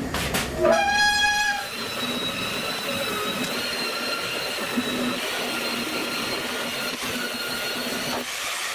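Angle grinder with a purple abrasive disc: it spins up with a rising whine about a second in, then runs steadily with a high whine and hiss as the disc scours the bare steel of a car hood, leaving it polished.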